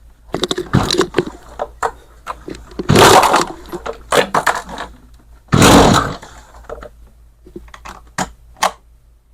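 Recoil starter of a Stihl chainsaw with the easy-start system being pulled with the choke on, the two strongest pulls about three and five and a half seconds in, with handling clicks and rattles between. The engine turns over but does not fire.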